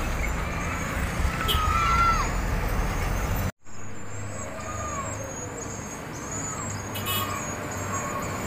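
Diesel cargo trucks passing close by on a road, their engines running, with a few shouts over the engine noise about two seconds in. An abrupt cut about three and a half seconds in leaves quieter traffic with a steady engine hum and small high chirps.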